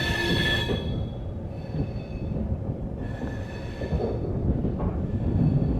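Train rolling slowly with a low rumble while its wheels screech against the rails in two high-pitched spells: one at the start, lasting under a second, and another about three seconds in.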